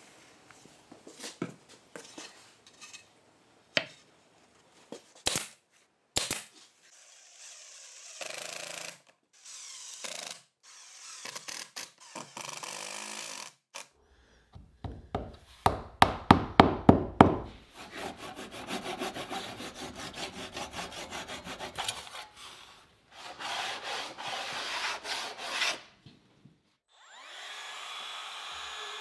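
Face frames being fastened to a wooden box: a few sharp single shots of a nail gun early on, then a cordless driver sinking screws into the wood in short whirring runs. About halfway there is a loud run of rapid rattling pulses as a screw is driven home. Near the end a steady machine hum starts.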